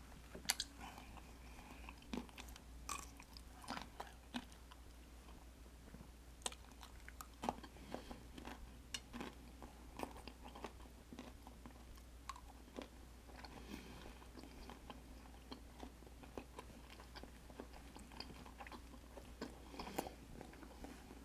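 A person chewing and biting food close to the microphone, with irregular small crunches and wet clicks throughout.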